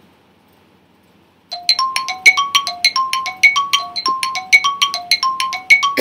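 Quiz countdown-timer sound effect: a fast, even run of short chiming notes that alternate between two pitches, about three or four a second. It starts about a second and a half in, after a quiet start.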